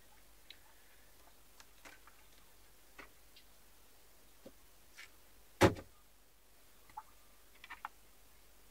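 Scattered light clicks and taps of a filleting knife and hands working fish on a cutting board, with one sharp knock a little past halfway.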